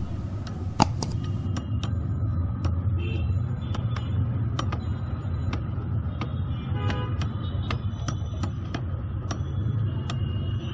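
Busy street ambience: a steady low rumble of road traffic, scattered sharp clicks and knocks, and a short horn toot about seven seconds in.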